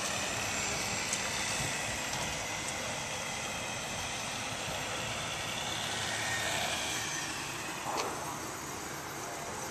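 Street traffic: a steady hiss of cars running past on a city street, with a short click about eight seconds in.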